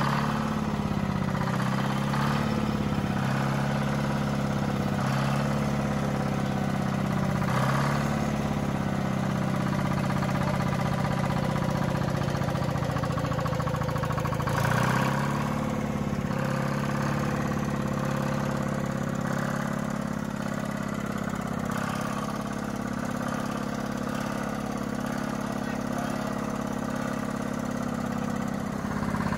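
Old diesel engine on a run stand, running steadily while ether starting fluid is sprayed into it to keep it going. About halfway through, its speed briefly dips and picks up again.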